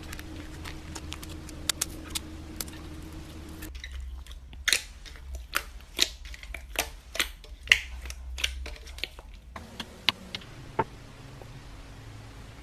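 Hands squishing slime, with scattered crackling clicks as the foam-bead slime is pressed. About four seconds in, a glossy slime takes over, giving a run of sharp, louder popping clicks from air pockets. The clicks thin out after about nine and a half seconds.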